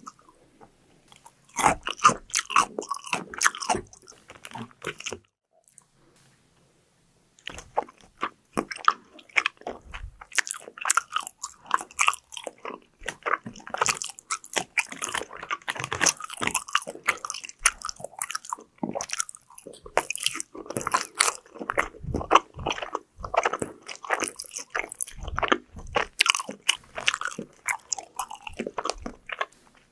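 Close-miked biting and chewing of crunchy fried food, with dense crackling crunches and a short pause about five seconds in.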